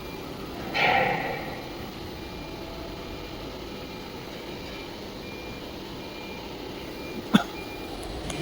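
CNC router running its automatic tool-length calibration cycle, with a soft high beep repeating about every 0.7 seconds. A short hiss comes about a second in, and a sharp click near the end.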